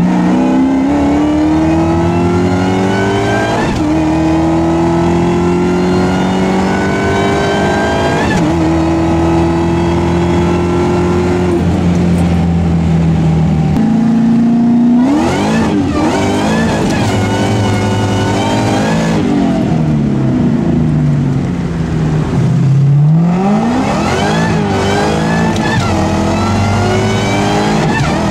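2004 Ford Mustang SVT Cobra's supercharged 4.6-litre V8 with a catless exhaust, heard from inside the cabin under way. The engine climbs in pitch through gear changes about 4 and 8 seconds in, holds steady for a few seconds, then revs up and down sharply through the second half, dropping low and climbing again a little past the middle.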